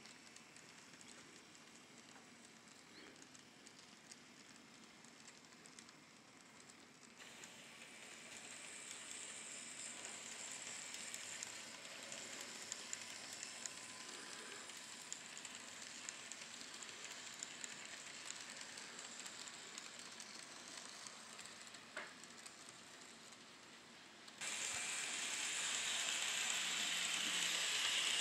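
N scale model trains running on the layout's track: a faint, steady rolling hiss from the small wheels and motors. It grows louder about seven seconds in and jumps louder again for the last few seconds as a train runs close by. There is one light click a little before the end.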